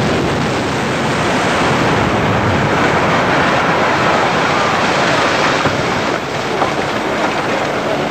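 Office tower collapsing in a controlled implosion: a long, continuous rumble of falling concrete and debris, right after the demolition charges have fired, easing off about six seconds in.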